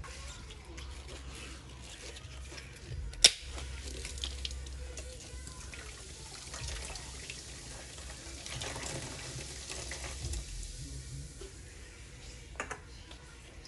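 Tap water running into a kitchen sink, a steady hiss, with a sharp knock about three seconds in and a fainter one near the end.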